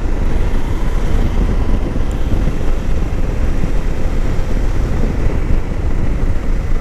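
Steady wind rush and road noise from riding a Suzuki V-Strom 800 DE motorcycle, with its parallel-twin engine running at an even pace.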